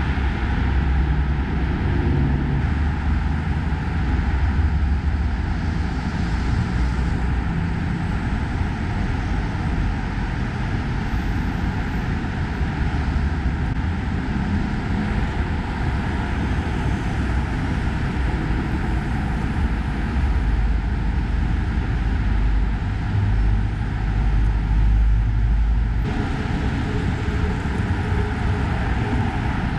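Steady heavy road traffic on a wide city avenue: a continuous rumble of engines and tyres that swells as vehicles pass, loudest about 25 seconds in.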